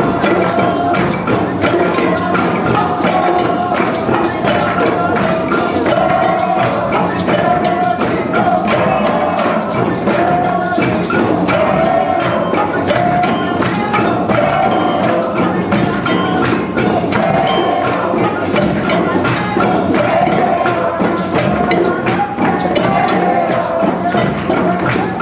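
Music: steady, continuous instrumental music with a recurring melody and many light percussion strikes.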